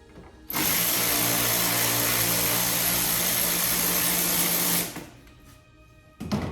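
A power drill running steadily at one speed for about four seconds, then stopping sharply. A single short knock follows near the end.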